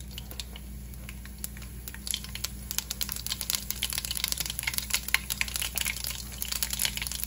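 Mustard and cumin seeds sizzling and crackling in hot oil in a wok. The crackle is sparse at first and grows into a dense run of quick pops from about two seconds in as the seeds begin to pop.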